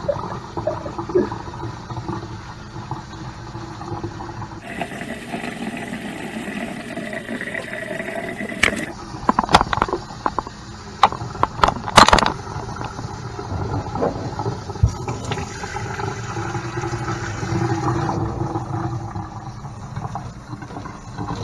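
Water from a kitchen sink tap and pull-out sprayer running over soapy dreadlocks and splashing into a stainless steel sink, with a hiss that rises and falls as the spray is moved. Several sharp knocks and clatters come about halfway through.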